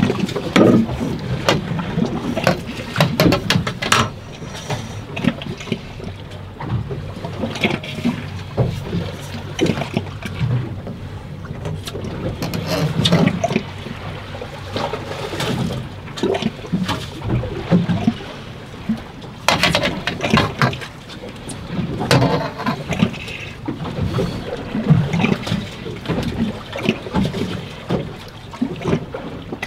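Choppy sea water slapping and sloshing against a small boat's hull in irregular splashes, over a steady low rumble.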